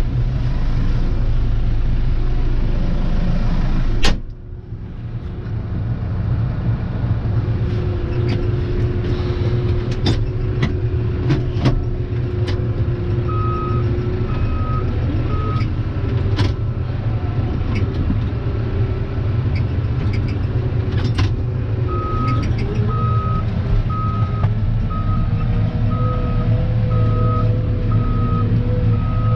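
Case IH Farmall 95C tractor's diesel engine running steadily, heard from inside the cab, while the loader works a round bale. A reversing alarm beeps at about one beep a second, briefly near the middle and steadily through the last third. There is a sharp knock about four seconds in and scattered clanks.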